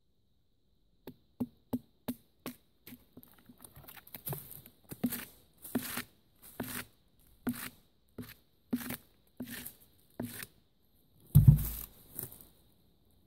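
Fixed-blade bushcraft knife chopping into wood: a run of sharp strikes, about one and a half a second, growing harder after about four seconds. Near the end comes one heavy low thud, the loudest sound.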